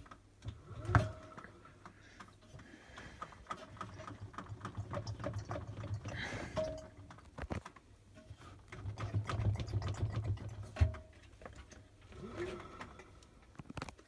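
Empty stainless steel drum of a front-loading washing machine being turned and handled by hand, with a low rumble and a patter of small rattles and clicks. There are two sharp knocks, about a second in and near the end.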